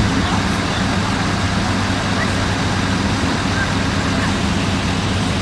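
Fire apparatus engines running steadily at a fire scene, a constant low hum.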